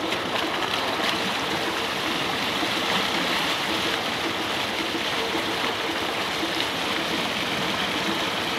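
Water gushing steadily from a tubewell's outlet pipe into a concrete tank, splashing and churning in the pool.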